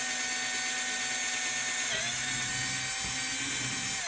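Electric drill running steadily as it bores the centre hole through a cast resin clock face, its whine dipping briefly about halfway as the bit bites, then stopping abruptly.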